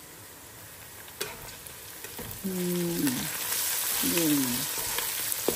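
Whole spices, cumin and green chillies frying in hot oil in a cooking pot while being stirred. The sizzle jumps louder about two and a half seconds in, and there are a few sharp clicks of the spoon against the pot.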